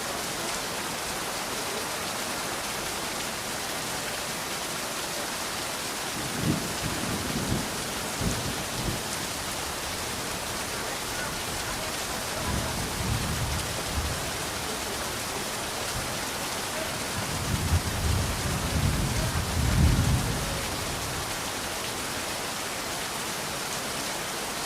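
Steady rain falling with a constant hiss. Low thunder rolls in three times: first about six seconds in, again around twelve seconds, and loudest just before twenty seconds, where it swells and then fades.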